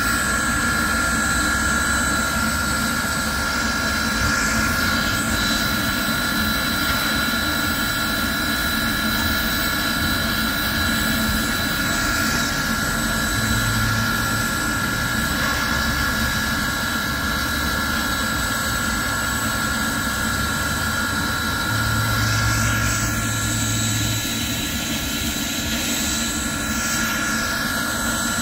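Baldwin Locomotive Works No. 26, an 0-6-0 steam switcher, standing with steam up: a steady loud hiss with a high steady whine and no exhaust chuffs.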